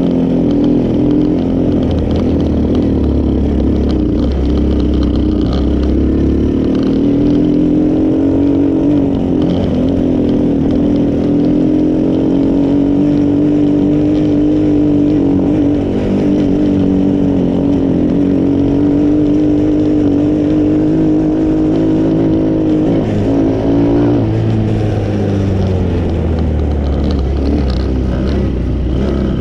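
The 125cc single-cylinder four-stroke engine of a small Chinese ATV running steadily under throttle while being ridden, with the freshly cleaned carburettor taking new fuel. Near the end the engine note drops as the revs ease off.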